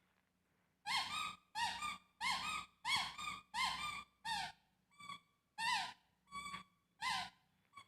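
A baby's high-pitched squeals: about ten short squeaks in a row, each rising then falling in pitch, starting about a second in.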